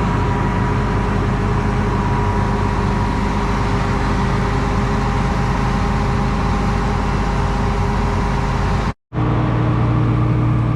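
A combine's engine running steadily at a constant speed. About nine seconds in it cuts off sharply for a moment, then an engine comes back with a different, steadier low hum.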